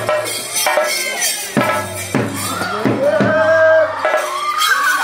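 Ritual drumming on a chenda with bright metallic jingling: a run of sharp strokes in the first two seconds. From about two seconds in, a voice calls out in long wavering tones that glide up and down over the lighter drumming.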